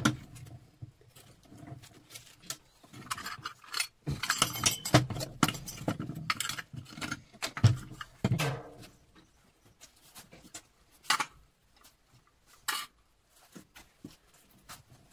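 Metal scrap parts and hand tools clinking and clattering in irregular knocks, with a denser run of rattling about four to seven seconds in.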